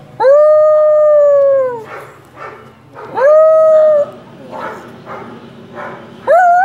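Small white long-haired dog howling: three long howls, each swooping up at the start, holding a steady pitch and sagging down at the end. The first is about a second and a half long, the second shorter, and the third begins near the end.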